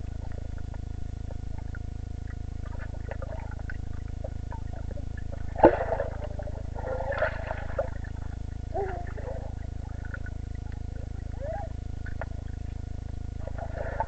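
Underwater sound in a swimming pool: a steady low rumble with scattered muffled, warbling squeaks and gurgles, and a sharp knock about six seconds in.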